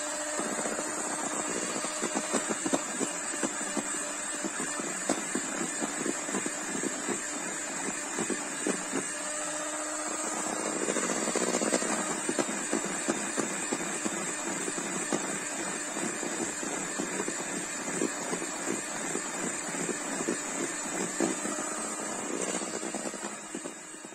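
Handheld electric mixer running, its beaters whisking cake batter in a bowl, with frequent light clicks of the beaters against the bowl. The motor's tone shifts about ten seconds in.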